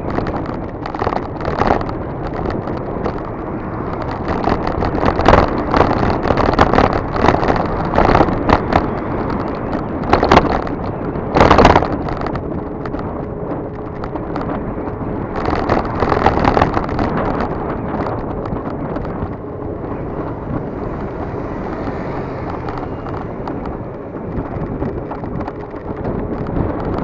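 Wind buffeting the microphone and road noise from a camera riding along a road, with strong gusts between about five and twelve seconds in and again around sixteen seconds. A faint steady hum joins about halfway through.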